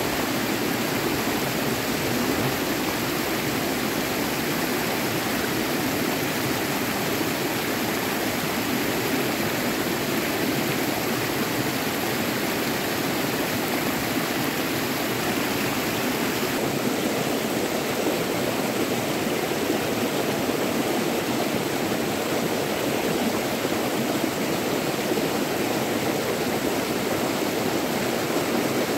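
River water rushing and flowing steadily.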